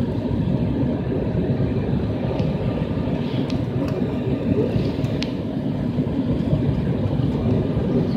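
Steady low cabin noise of an airliner on final approach with flaps extended, engine and airflow noise heard from a window seat, with a few faint clicks.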